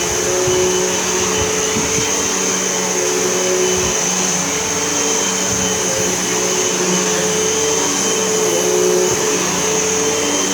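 Hoover Elite whole-house vacuum cleaner running steadily on carpet. Its motor holds a high whine, while its lower tones waver slightly in pitch.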